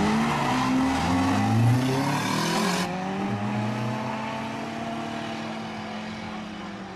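Two cars accelerating flat out side by side down a drag strip, their engines climbing in pitch and dropping back at each gear change. About three seconds in, the sound switches abruptly to the cars farther off, their engines still rising in pitch and fading away.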